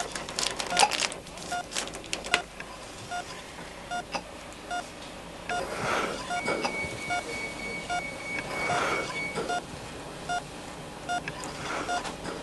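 A hospital patient monitor sounds short, regular beeps. A ventilator breath hisses twice, about three seconds apart, with a thin steady tone between them. A cluster of clicks comes near the start.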